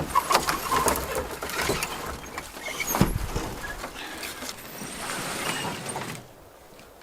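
Irregular knocking and scraping as a light canoe is landed and handled on shore, with one heavy knock about halfway through. The noise stops shortly before the end.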